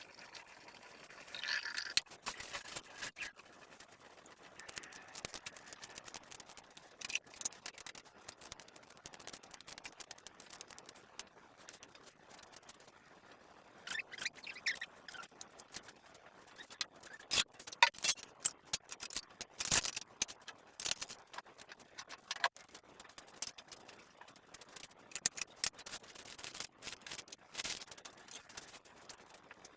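Kitchen clatter: irregular clicks, knocks and light scrapes of utensils and dishes being handled, with the loudest strikes about two-thirds of the way through.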